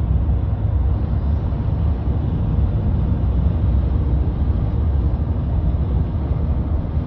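Steady road and engine noise of a car on the move, heard from inside the cabin, a low rumble that holds even throughout.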